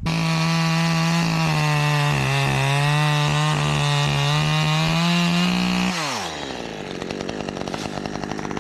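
Chainsaw running at high revs, its pitch sagging slightly for a moment. About six seconds in the throttle is released and the engine drops back to a low idle.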